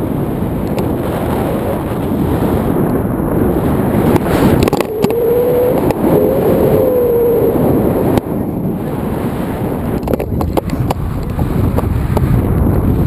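Airflow buffeting the action camera's microphone during a tandem paraglider flight: a loud, steady rush of wind noise. A faint wavering tone runs from about five to seven and a half seconds in, and a few sharp clicks come near ten seconds.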